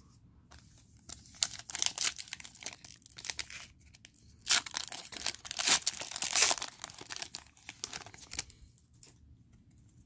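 A foil trading-card pack being torn open and crinkled by hand, a run of crackling tears that is loudest in the middle.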